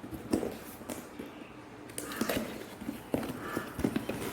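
Scattered light knocks, taps and rustles of a gift box and its packaging being handled and opened by hand.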